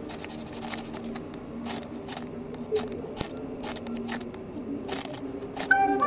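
Thin 4 mm ferrocerium rod fire starter scraped repeatedly with its small metal striker: a quick, irregular series of short, sharp scrapes, about two or three a second.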